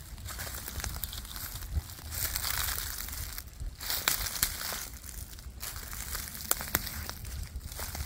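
Footsteps in sneakers crunching through dry fallen leaves, sticks and acorns at a slow walking pace, each step a crinkling crunch. Now and then a sharp crack as an acorn or twig gives way underfoot.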